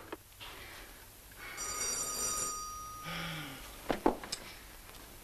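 An electric bell rings once for about a second, a bright steady ring: a doorbell announcing a visitor. A brief low hum follows, then a few light knocks near the end as someone gets up off a bed.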